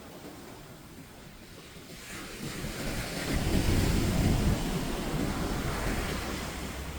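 Ocean surf: a wave breaks and its rush of water swells about two seconds in, is loudest around the middle, then slowly eases off.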